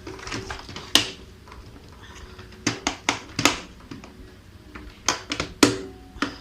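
Hard plastic parts of a Bissell PowerClean dry-drum vacuum clicking and knocking as they are fitted and snapped together, with about nine sharp clicks scattered irregularly. The vacuum motor is not running.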